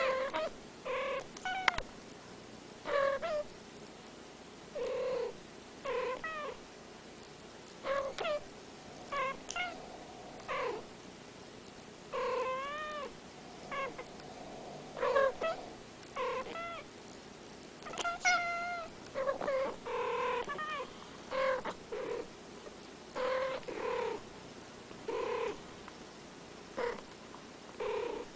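Two domestic cats trading short meows back and forth, one call every second or so, many of them gliding up or down in pitch.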